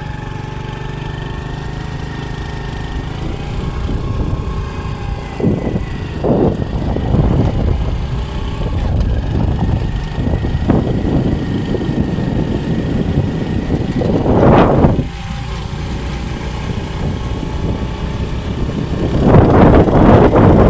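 Honda CD70's small single-cylinder four-stroke engine running, with several surges of throttle. One rev about fifteen seconds in cuts off suddenly, and the loudest comes near the end.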